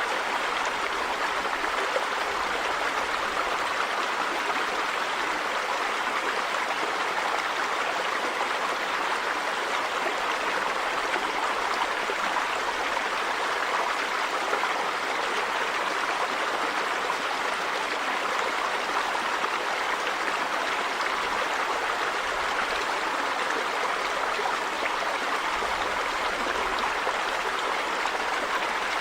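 River water running steadily over rocks, an even rushing with a faint gurgle.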